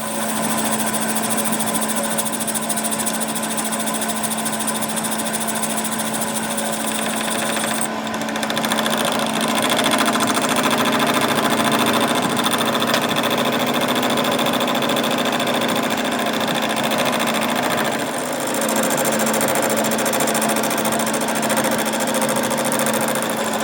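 A workshop machine tool running steadily with a fast, even mechanical chatter over a constant hum. The sound dips and shifts briefly about eight seconds in and again near eighteen seconds.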